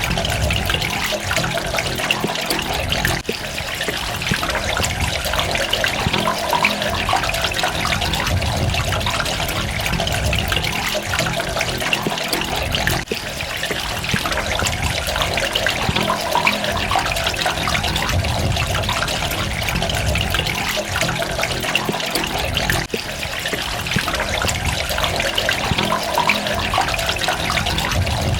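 Running water trickling and splashing steadily, with brief dips in level about every ten seconds.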